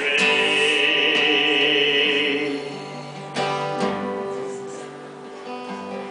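Live acoustic country song: a man's voice holds a long sung note over acoustic guitar for about two and a half seconds, then the acoustic guitar carries on alone, a fresh strum struck about three and a half seconds in and left to ring down.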